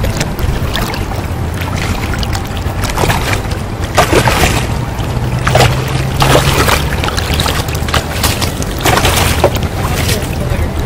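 Wind buffeting the microphone as a steady low rumble, rising in several louder gusts, over the rush of the river's current.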